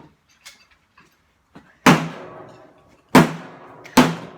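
A hammer striking the steel shell of an old water heater tank three times, each a sharp bang with a short metallic ring after it, the first about two seconds in and the next two about a second apart.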